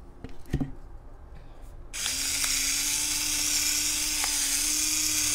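Battery-operated electric pepper grinder starting about two seconds in and running steadily, its small motor humming as it grinds black peppercorns. A sharp knock comes just before it, about half a second in.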